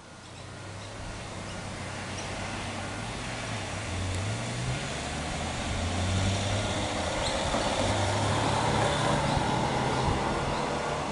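Queensland Rail electric multiple-unit passenger train approaching, its running noise growing steadily louder, with a low hum that shifts up and down in pitch.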